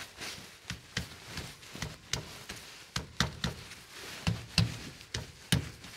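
Hands pressing and patting a round engine air filter element into its housing on a John Deere 8R tractor, working it into its seat. This gives an irregular string of knocks and taps, the loudest near the end.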